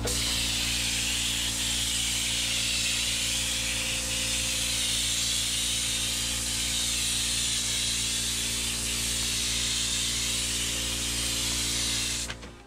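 Paint spray gun hissing steadily as bottom paint is sprayed onto a boat hull, over a steady low hum. The hiss cuts off suddenly near the end.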